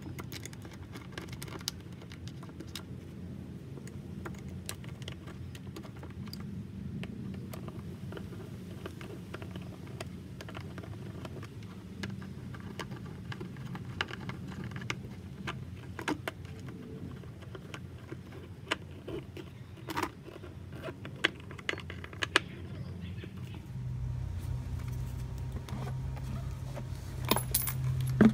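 Scattered light clicks and clatter of a MAF sensor being handled into a plastic airbox and its screws turned with a small hand screwdriver, over a steady low hum. A louder low hum comes in near the end.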